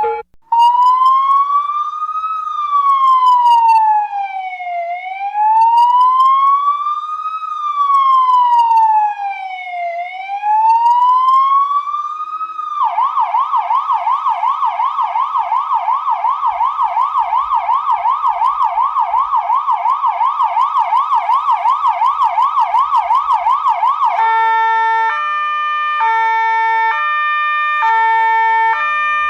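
Electronic police car siren running through three patterns. First a slow wail rises and falls about every five seconds; a little under halfway it switches to a fast yelp warbling about three times a second; near the end it becomes a two-note hi-lo alternating about once a second.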